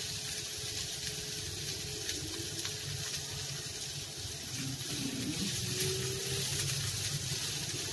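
Diced green plantain frying in a nonstick pan, a steady sizzle, with a wooden spatula stirring the pieces near the end.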